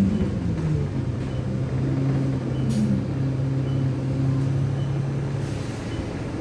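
Alexander Dennis Enviro 200 bus's 6.7-litre diesel engine heard from inside the passenger cabin, its revs dropping over the first second and then running steadily at an even low pitch.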